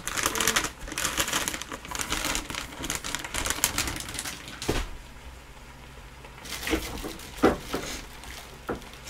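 Plastic bag of seasoned seaweed flakes crinkling and rustling as it is handled, in a dense run of crackles. One sharp knock comes a little past halfway, and a few more crinkles follow near the end.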